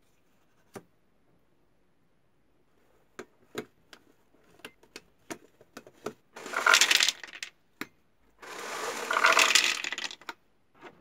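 Sharp clicks of buttons being pressed on a homemade cardboard vending machine's keypad, then two loud bursts of peanuts rattling out of the cardboard machine into a plastic tub, the second burst longer.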